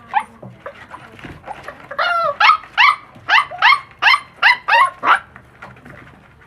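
Puppy yapping: a quick run of about nine high yips, each falling in pitch, starting about two seconds in, after a few fainter yelps.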